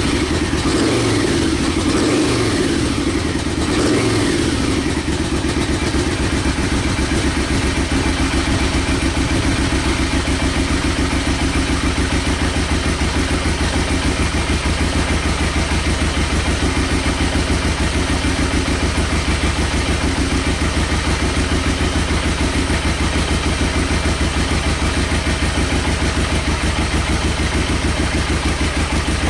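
Yamaha V-Max 1200 liquid-cooled V4 engine running on its freshly changed oil and filter. It rises and falls a few times in the first four seconds, then idles steadily.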